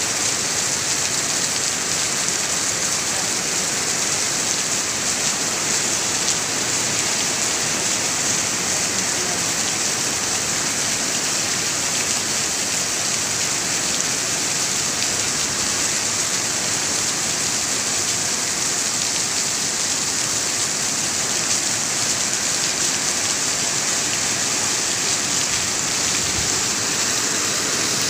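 Steady rain falling, an even hiss of drops with no break or change.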